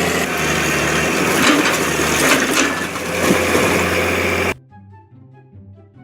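A heavy construction machine's engine running steadily, with crunching and knocking over it. The sound cuts off suddenly about four and a half seconds in, leaving only faint background music.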